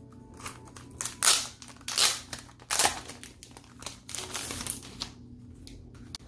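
Merch packaging being handled: a series of brief rustles and crinkles over the first few seconds, fading to quiet handling near the end.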